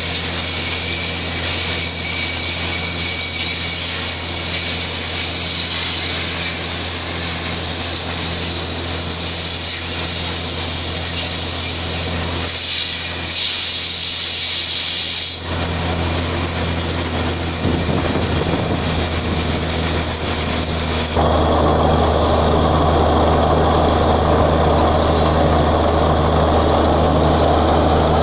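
Borewell drilling rig running: a steady low engine hum under a loud, constant hiss of air. The mix changes abruptly about fifteen seconds in and again about twenty-one seconds in.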